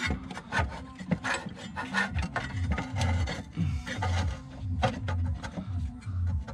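Hands working a diesel fuel filter's plastic fuel hose and clip: irregular rubbing, scraping and small clicks of plastic being pushed and twisted.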